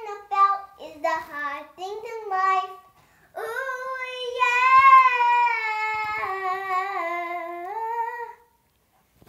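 A young girl singing unaccompanied: a few short sung phrases, then one long held note that wavers and steps down in pitch before breaking off.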